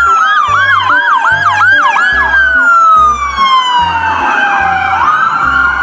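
Electronic police-car siren: a wail that slowly falls and then rises again, overlaid by fast repeated yelping chirps. A steady low music beat runs beneath it.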